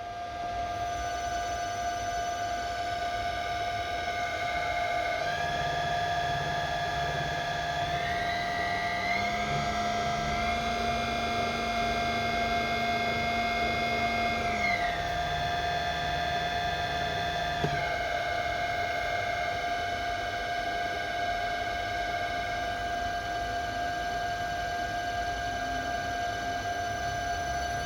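Fuji FRENIC 5000G11 inverter driving a motor in a test run after repair, with a steady electrical whine. The motor's pitch steps up about five seconds in, glides higher, holds, then glides back down and steps down again, as the drive ramps its speed up and back. A short click comes near the end of the ramp down.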